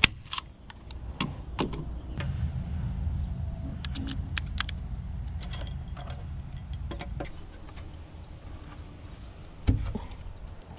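A hand staple gun snaps once at the start, then scattered clicks and light metal clinks of tools and lag screws being handled over a low rumble, with a heavier knock near the end.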